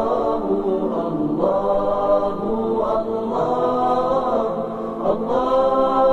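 Background music of vocal chanting: a voice holding long notes that slide from one pitch to the next, with no drum beat.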